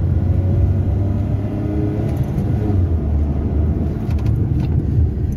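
Maruti Suzuki Alto 800's three-cylinder engine accelerating from low speed while running on CNG, heard from inside the cabin as a steady loud low rumble.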